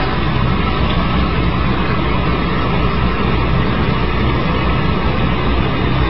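Toilet flushing, a steady rush of running water as the bowl empties and the tank refills, set off by a cat pressing the flush handle.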